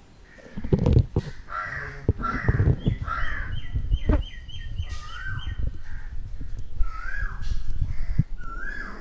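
Birds calling: a series of harsh calls, with a quick run of short high notes about halfway through, over low rumbling thumps that are loudest about a second in.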